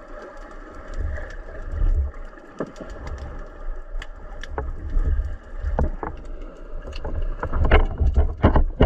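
Underwater sound picked up through a camera housing: a steady low rumble of moving water with scattered clicks and knocks, swelling into louder rushing bursts near the end as the diver moves.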